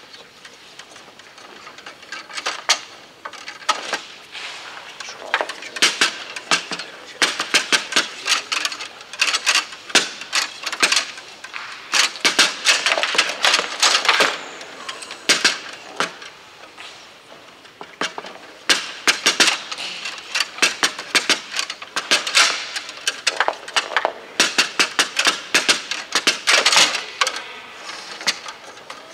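Foosball play on a Bonzini table: fast clusters of sharp clacks as the ball is struck by the figures and bangs off the walls, with the rods knocked and jolted, broken by short lulls between shots.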